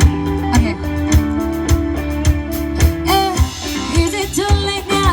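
A live band playing: guitars over a steady kick-drum beat, with a higher melody line coming in about three seconds in.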